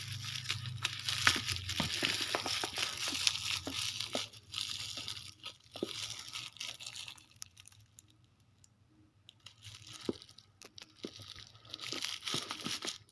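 Packaging being torn open and crinkled by hand: dense crackling and rustling for the first half, then sparser crinkles, picking up again near the end.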